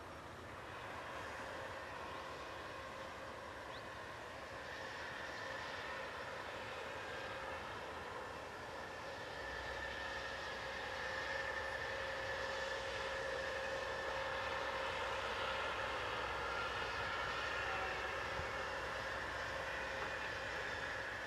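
Distant diesel locomotives of a passing work train, a steady engine drone with a whine that slowly grows louder. A low rumble joins about halfway through.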